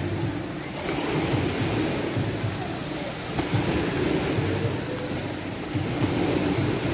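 Artificial waves in a wave pool washing and splashing, a steady surging rush of water, with a low steady hum underneath.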